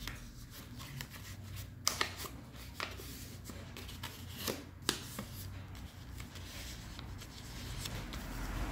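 A sheet of origami paper being folded and creased by hand: soft rustling with a few sharp crinkles a couple of seconds apart.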